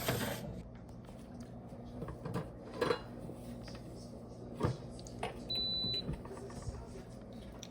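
Espresso machine controls clicking and parts knocking as the machine is handled, then a single short high beep about two thirds of the way in, over a faint low hum.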